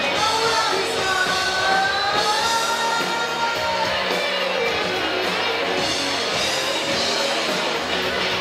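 Live rock band playing with electric guitars and a drum kit, with held, gliding sung notes over the first few seconds.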